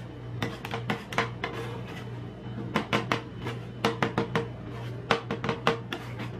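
Metal spatulas chopping and scraping rolled ice cream mix on a steel cold plate: irregular clusters of sharp metallic taps over a steady low hum.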